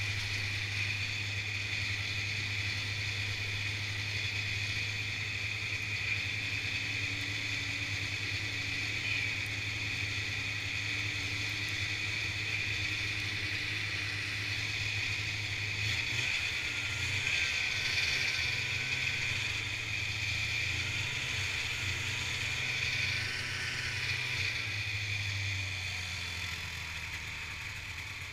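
Snowmobile engine running steadily while the sled rides along a snow trail. Its note wavers about two-thirds of the way through, then falls in pitch and level near the end.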